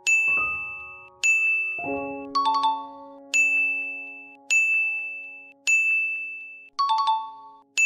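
Light background music: a bright bell-like ding sounding about six times, roughly once a second, each fading quickly, with short glockenspiel-like phrases in between and a low held note from about two seconds in.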